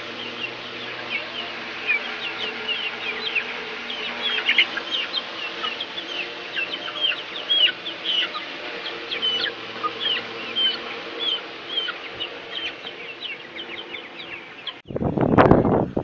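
A flock of young Golden Misri chickens feeding, with many short, high peeping calls, several a second, and some clucking. About a second before the end a loud rush of noise drowns them out.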